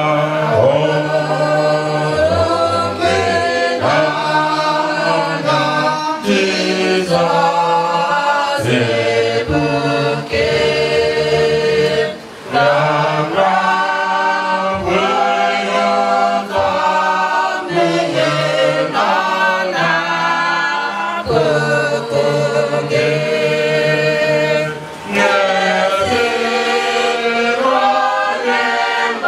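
A group of mourners singing a hymn together without instruments, voices sung into handheld microphones, in long held phrases with brief breaks about twelve and twenty-five seconds in.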